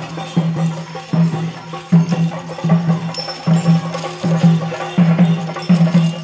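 Music with a steady percussive beat, a little faster than one beat a second.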